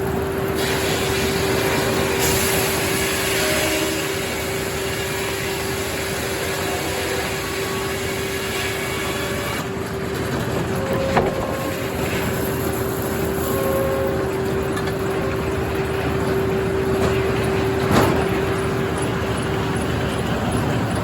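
Circular sawmill running and sawing a log: steady machine noise with a constant hum, and a couple of sharp knocks about 11 and 18 seconds in.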